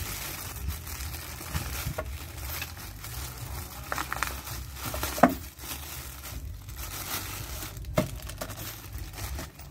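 Plastic packaging crinkling and rustling as a parcel is opened by hand. There are a few short sharp clicks, the loudest about five seconds in and another about eight seconds in.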